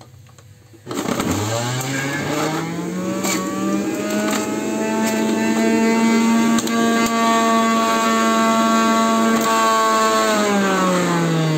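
Electric juicer motor starts about a second in and quickly spins up to a steady hum while ginger is pushed down the feed chute, with a few sharp clicks. Near the end it is switched off and its pitch falls as it winds down.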